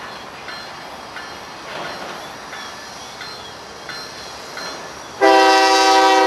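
Freight train's diesel locomotive air horn: a loud, steady horn blast starts suddenly about five seconds in, over the faint rumble of the approaching train.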